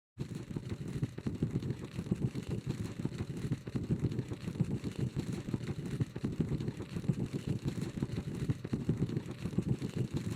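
A low, fluttering, engine-like rumble that starts suddenly out of silence and runs on steadily.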